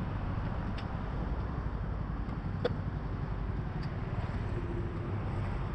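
Steady low rumble of road traffic, with a few faint short clicks about a second, two and a half seconds and four seconds in.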